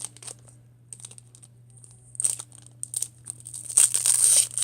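Foil wrapper of a Pokémon trading card booster pack crinkling in the hands, then torn open with a louder rustle near the end.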